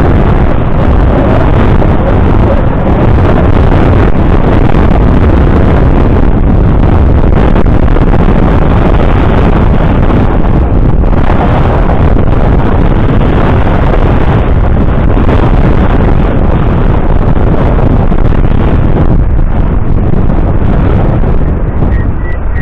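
Wind buffeting the microphone of a camera on a moving bicycle: a loud, steady rushing rumble.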